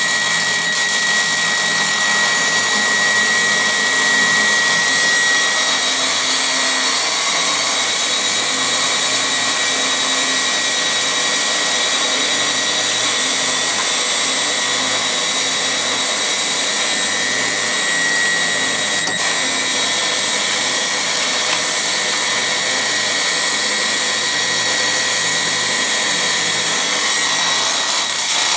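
Steady hiss of a MIG welding arc as an orbital bore welder runs the torch continuously around a cast-iron bore, with a thin high whine running under it.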